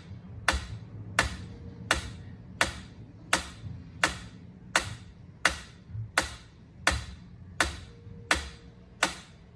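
Sharp clicks repeating at a steady, even pace, about three every two seconds, over a faint low hum.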